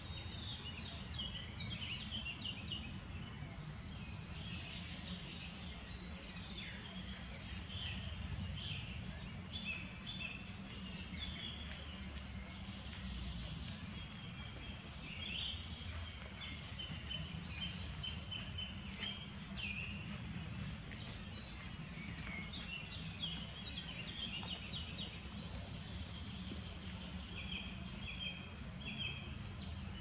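Common nightingales singing at night: a dense, unbroken run of varied phrases, whistles and quick repeated notes, over a steady low rumble.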